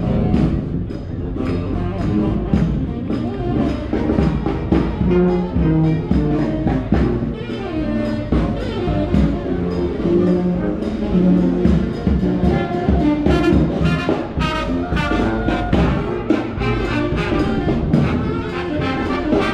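Brass band playing jazz: trumpet and trombone lines over a drum beat.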